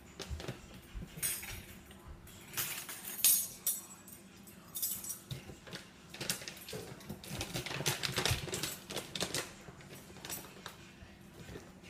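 Kitchen clatter: bowls, utensils and other kitchenware being handled, with two longer bursts of rattling about a third of the way in and again past the middle.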